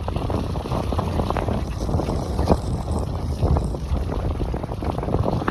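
Wind buffeting the microphone: a steady low rumble with scattered short gusty crackles.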